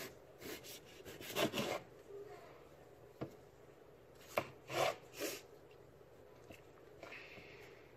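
Kitchen knife slicing raw potatoes on a plastic cutting board: a handful of separate cuts at uneven intervals, each a short scrape ending in a knock of the blade on the board, the loudest about a second and a half in and around four to five seconds in.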